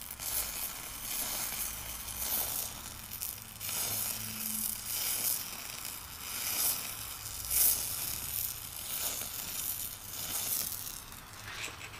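Eutalloy Ultra Jet oxy-acetylene powder-spray torch flame hissing on a steel shaft end, with irregular crackling as the metal powder fuses onto the hot surface to build it up.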